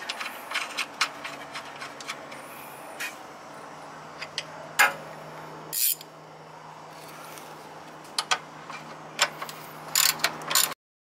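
Wrench on a car's lower control arm bolt: irregular ratcheting clicks and clinks of steel tools on the suspension, with a few louder knocks in the middle. The sound cuts off suddenly near the end.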